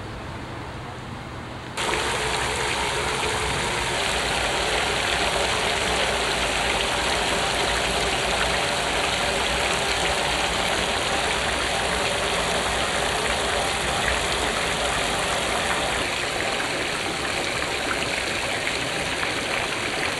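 Fountain water jets spraying and splashing into a pool around bronze sculptures, a steady rushing hiss that starts abruptly about two seconds in over quieter background.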